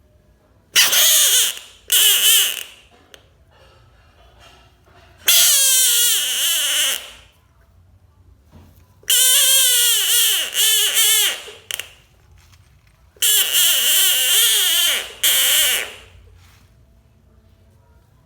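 Bullfrog screaming its distress call: five loud, wavering cries of one to three seconds each, a few seconds apart.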